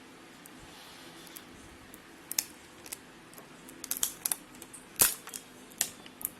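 Hands handling a new Samsung Galaxy F22 smartphone and its packaging: scattered sharp clicks and taps after about two quiet seconds, the loudest about five seconds in.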